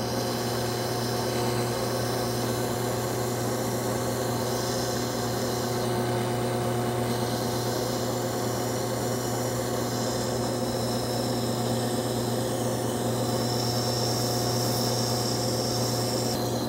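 Drill press running with a sanding drum in the chuck, a steady motor hum, while the edge of a plywood cutout is pressed against the spinning drum and sanded with a continuous rubbing scratch.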